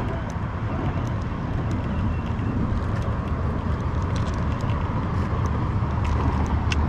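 Steady low rumble with a hiss over it, growing slowly louder, with a few faint clicks.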